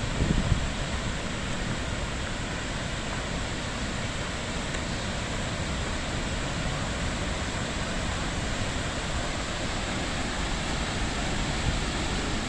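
Skógafoss waterfall: a steady, dense rush of falling water, with a few gusts of wind thudding on the microphone about the first half second.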